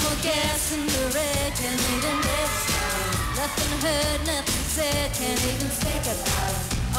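A woman singing a pop song into a handheld microphone over a full dance-pop backing track with a steady drum beat.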